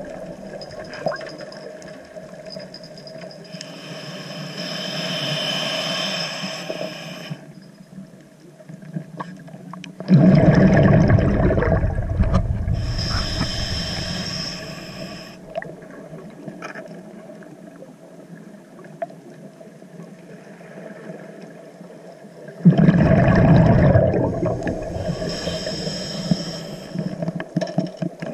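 A scuba diver breathing through a regulator underwater: hissing inhales through the regulator, and two loud rushes of exhaled bubbles, about ten and twenty-three seconds in, each followed at once by another hissing inhale.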